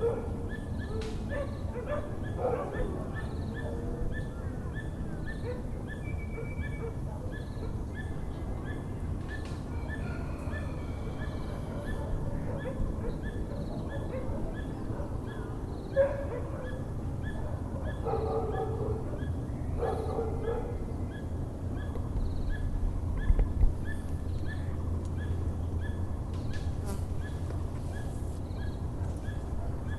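Dogs barking in a few short bouts, near the start and again around the middle. Under them is a steady low rumble of town noise, and a bird, the Muller's barbet, repeats its call at an even rhythm throughout.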